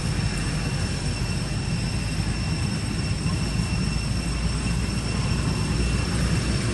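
Steady outdoor background noise: a constant low rumble under an even hiss, with a thin, unchanging high-pitched whine on several notes.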